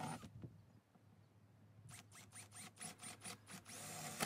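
DeWalt cordless drill boring corner starter holes through plywood: after a quiet second, a quick run of short clicking bursts, then a longer spell of drilling near the end.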